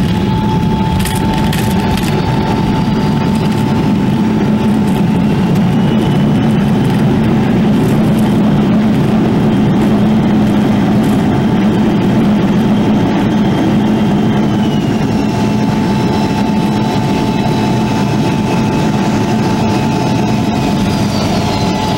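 Inside a jet airliner's cabin during the landing rollout: a loud, steady rumble of engines and runway with a constant whine running through it. A fainter, higher whine slides down in pitch partway through.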